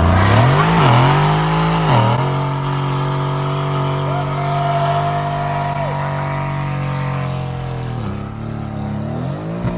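Car engine revving up, then held at steady high revs for about six seconds before easing off and revving again near the end.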